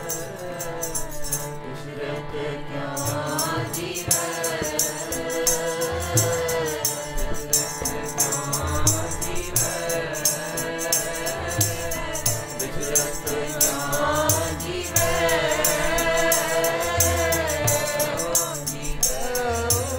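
Sikh keertan: a group of voices singing a shabad together, accompanied by harmonium and tabla. A high jingling percussion keeps a fast, even beat.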